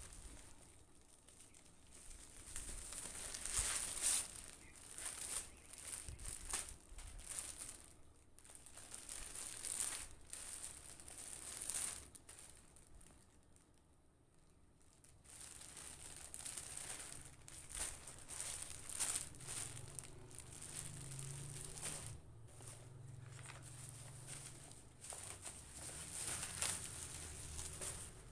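Plastic packaging crinkling and tearing in irregular bursts as a parcel is unwrapped, with a quiet pause about halfway through.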